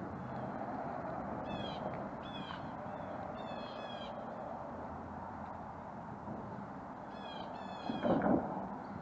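A bird calling outdoors, giving two series of short, harsh, repeated notes, the first about a second and a half in and the second near the end, over steady background noise. A brief low rumble comes near the end and is the loudest moment.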